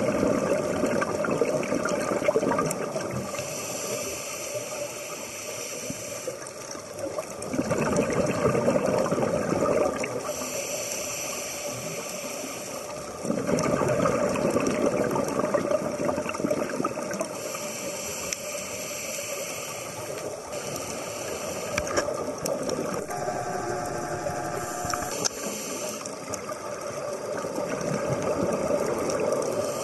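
Scuba diver breathing through a regulator underwater: a hiss on each inhale alternating with a rush of exhaled bubbles, in slow, regular breaths a few seconds apart.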